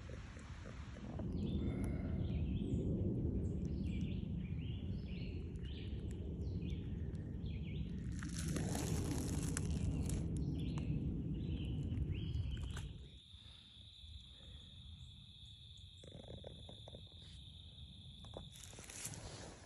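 Woodland ambience: a run of short bird chirps over a low rumble for the first dozen seconds, then quieter, with a steady high-pitched tone held through the last several seconds.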